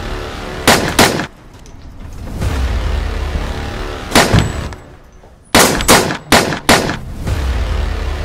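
Pistol gunshots in three groups: two about a second in, a close pair around four seconds, then four quick shots between five and a half and seven seconds. Sustained music swells in and out underneath.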